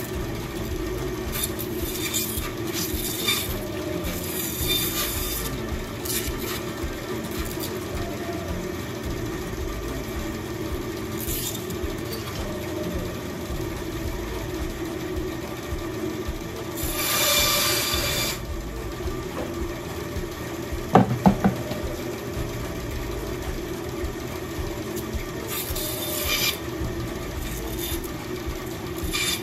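Bandsaw running steadily while side branches are trimmed off a thin pine sapling stick. Short rasping cuts come as the blade bites through twigs, the longest about two-thirds of the way through, followed by a few sharp knocks of wood.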